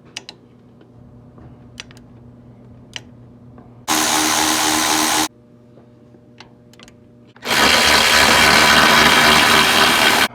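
A power tool, an electric ratchet or impact-type driver, run twice on an alternator mounting bolt: a burst of about a second and a half, then a longer run of about three seconds, each stopping sharply. Light clicks and knocks of tool handling come before.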